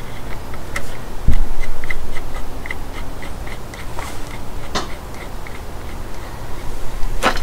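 Knocks and clicks of a metal seal-driver tool being handled against a truck's front wheel hub, with a dull thump about a second in. A faint, regular ticking about three times a second runs underneath.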